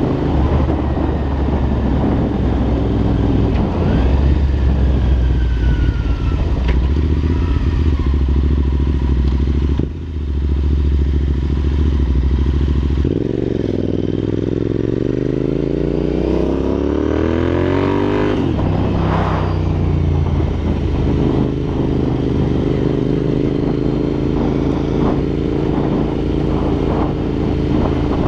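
Royal Enfield INT650's parallel-twin engine running through aftermarket Red Rooster exhausts while riding. It holds a steady note with a brief dip about ten seconds in. About halfway through the engine revs up, its pitch rising for about five seconds, then drops back to a steady run.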